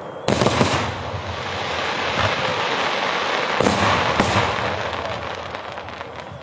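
Daytime aerial fireworks going off: a sudden loud bang about a third of a second in, then dense crackling of many small reports, with two more sharp bangs around three and a half and four seconds in before the crackling fades.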